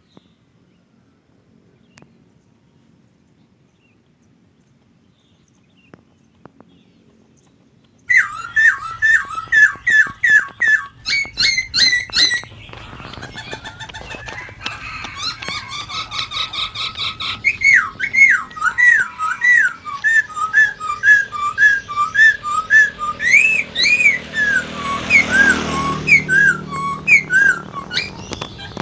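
A few faint clicks over near silence, then about eight seconds in a poksay laughingthrush bursts into loud song: fast runs of repeated whistled notes, followed by varied rising and falling whistled phrases.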